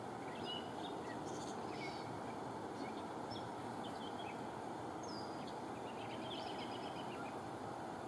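Birds chirping in short, scattered calls, one with a falling sweep about five seconds in, over a steady low rushing background noise.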